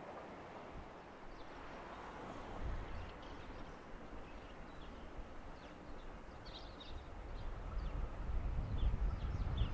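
Small birds chirping in short high calls from about four seconds in, over steady outdoor noise; a low rumble builds and grows louder near the end.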